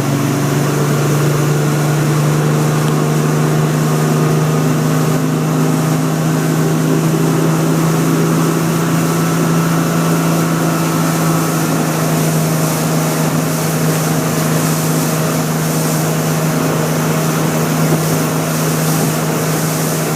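Speedboat engine running steadily at speed: one constant, unchanging engine note under a steady hiss of wind and rushing water.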